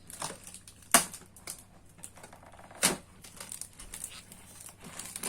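Tape being pulled off toy packaging by hand: scattered small crackles with two sharp clicks, about a second in and near three seconds in.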